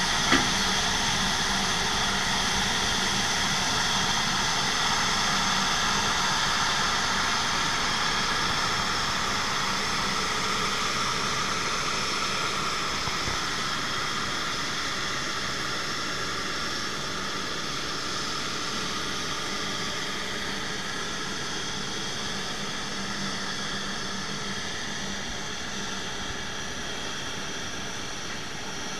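Airbus A350-900's Rolls-Royce Trent XWB jet engines idling with a steady whine that slowly fades as the listener pulls away, over the steady low hum of the pushback tug's engine. A short knock sounds just after the start.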